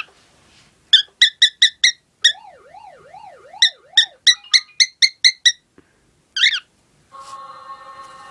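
Cockatiel whistling its song: quick runs of short, bright chirped notes, about five a second, broken by a lower wavering siren-like warble, and then one longer call. A steady hum comes in near the end.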